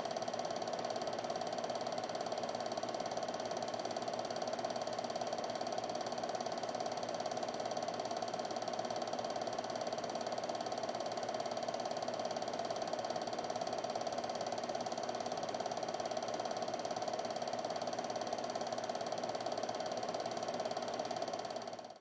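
Film projector running: a steady mechanical whirring that fades out right at the end.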